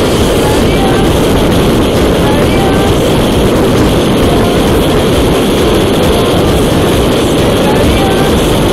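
Steady loud wind rush buffeting a motorcycle-mounted camera at highway speed, with a Yamaha Tracer's engine running under it.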